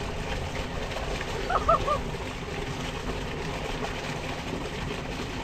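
Tube well water gushing steadily from the outlet pipe into a small concrete tank, a constant splashing rush. About one and a half seconds in, three short pitched calls sound over it.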